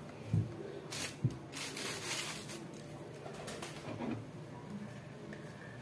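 Quiet handling noise as a phone camera is moved and set down on a kitchen counter: a few soft knocks and rustles in the first two seconds, then only small faint sounds.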